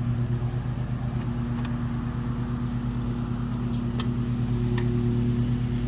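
Lawnmower engine running steadily, with a few faint clicks from tire spoons working a tire bead onto the rim.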